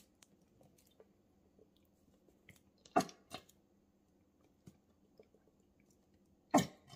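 Plastic squeeze bottle of Caesar dressing squeezed over a mixing bowl, the dressing squirting out in short bursts: two close together about three seconds in and another near the end.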